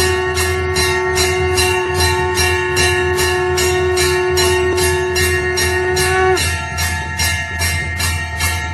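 Temple bells rung in quick, even strokes, about three a second, with their tones ringing on and overlapping. A deeper ringing tone cuts off about six seconds in, and a steady low hum runs beneath.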